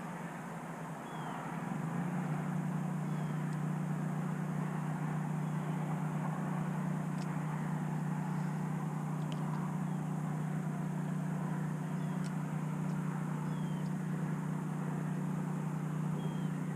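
Electric trolling motor running with a steady low hum, which grows louder about a second and a half in and then holds. Faint short chirps and ticks sound now and then above it.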